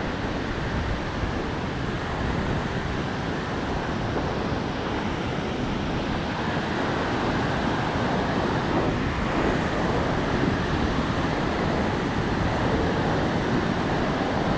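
Ocean surf breaking and washing up a sandy beach, a steady rushing noise with wind buffeting the microphone underneath.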